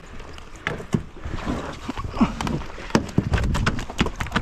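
Irregular knocks and thumps as a landing net holding a freshly caught red snapper is handled on a boat deck.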